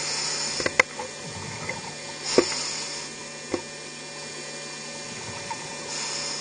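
Scuba diver breathing through a regulator underwater: hissing breaths about every three seconds, with a few sharp clicks and a steady low hum underneath.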